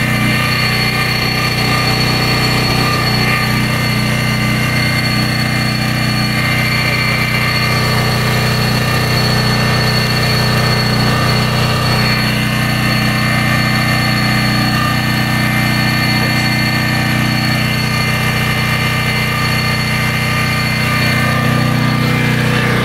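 Briggs & Stratton Storm Responder 5500-watt portable generator running steadily at constant speed, with no load on it yet because the generator breaker is still off.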